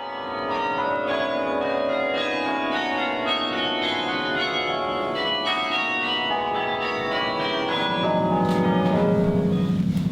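Carillon bells played as music, many bells struck in quick succession with their tones ringing over one another. About eight seconds in, a deep low tone comes in and the ringing grows a little louder.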